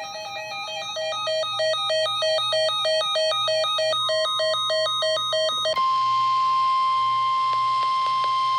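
Buzzy square-wave electronic beeps in a quick, steady pattern of about four a second. About two thirds in they give way to a single long, steady emergency-alert tone.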